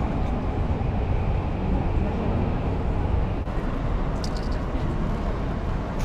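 Crowd ambience: a murmur of many people talking over a steady low rumble, with a few faint high ticks about four seconds in.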